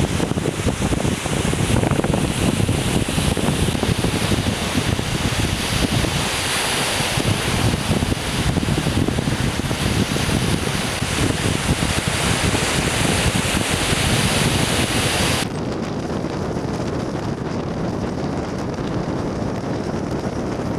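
Ocean surf breaking, with wind buffeting the camera microphone. About fifteen seconds in, it cuts to a steadier, duller rush of car road noise.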